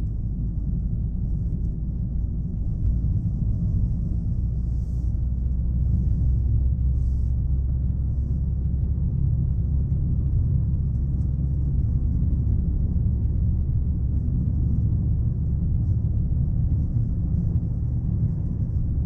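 Chevrolet Aveo being driven: a steady low engine and road rumble that grows a little louder about two seconds in. The small engine is noisy, and the car's poor sound insulation lets a lot of that noise through.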